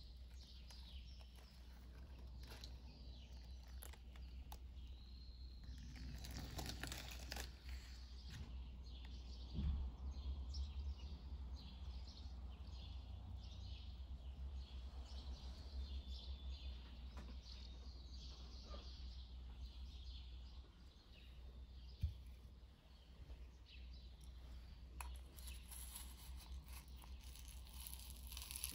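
Faint background noise with a steady low hum, scattered small clicks and rustles, and one sharp tick partway through.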